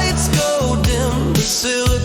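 Music: a new wave song with a punchy drum-machine beat, a pulsing synth bass and a gliding melodic lead line.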